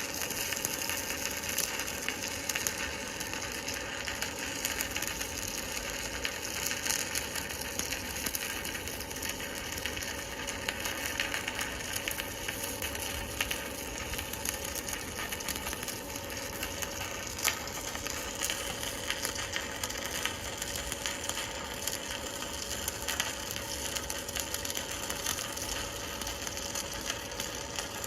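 Electric arc welding on a steel truck-frame plate: a steady, dense crackle and sizzle as a bead is laid along the seam. The welder takes it for a good-running weld.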